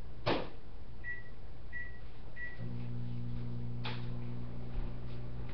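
Microwave oven: a sharp click, three short keypad beeps, then the oven starts running with a steady low hum. Another sharp click comes about a second after the hum starts.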